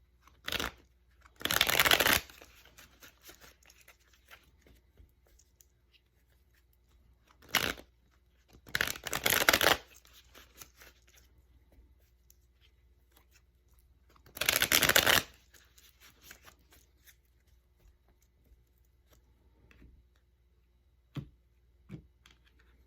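A deck of tarot cards being shuffled by hand in several short bursts of riffling, three main ones of about a second each with shorter flicks before two of them, and quiet handling between.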